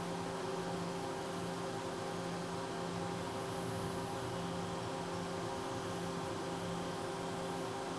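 Ohtori FTV-500HV 5-axis machining center milling a wheel-shaped metal part under coolant spray: a steady hiss with a low, even hum.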